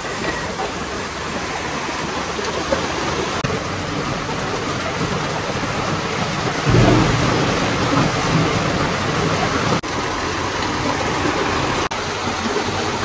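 Steady rain, with a low rumble of thunder about seven seconds in.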